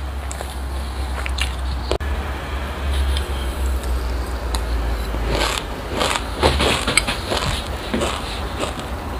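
Close-miked mouthful of crunchy sesame seeds with passion fruit being bitten and chewed: dense crisp crackles, thickest in the second half. A low steady hum runs under the first half.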